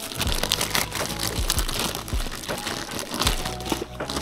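Clear plastic bag crinkling in quick, irregular crackles as hands pull it off a rack-mount unit.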